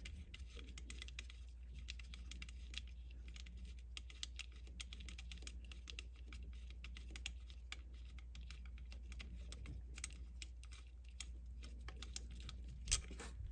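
Faint, rapid, irregular small clicks and ticks as fingers work a loosened bolt out of the factory plastic thermostat housing, with a steady low hum underneath. One sharper click comes near the end.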